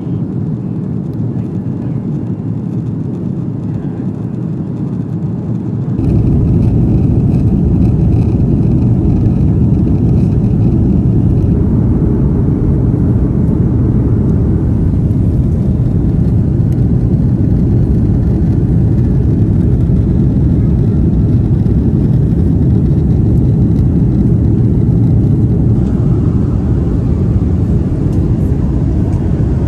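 Airbus A330-200 main-cabin noise: the steady rumble of its Rolls-Royce Trent 700 jet engines and the airflow. It jumps louder about six seconds in, then holds steady.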